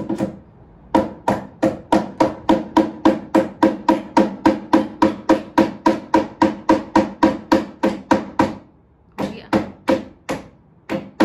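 Hand hammer striking a wall fixing in quick, even blows with a short ringing tone, about four a second, slowing to a few spaced blows near the end.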